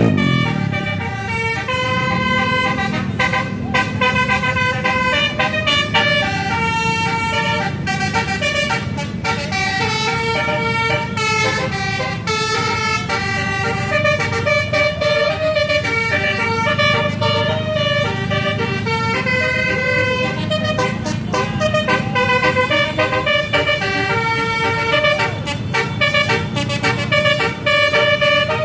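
Bus basuri (telolet) musical horns playing a melody in stepped, sustained notes for the whole stretch, over the low rumble of bus engines.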